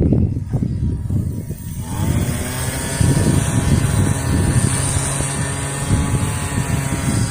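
Pressure washer's gas engine catching about two seconds in, after some low irregular rumbling, then running steadily.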